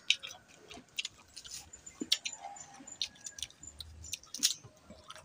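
Close-up chewing and biting of crisp green mango, with irregular small crunches and wet clicks.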